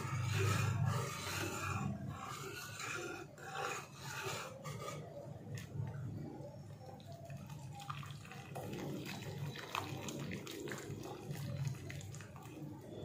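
Wire whisk stirring thick, cornflour-thickened soup in a steel pot: irregular slopping and squelching of the liquid with small clicks of the whisk, over a steady low hum.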